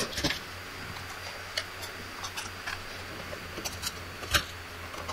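Scattered light clicks and ticks of pliers handling electrical wire while making up wire pigtails, with a sharper click about four seconds in, over a low steady hum.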